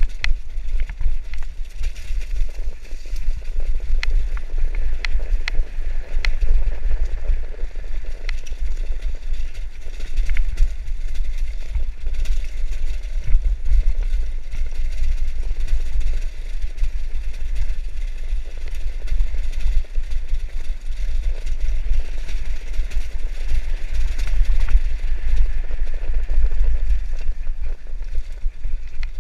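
Mountain bike clattering and rattling over a rocky, cobbled trail at speed, with many small knocks from the tyres and frame over the stones. Heavy wind rumble on the microphone runs under it.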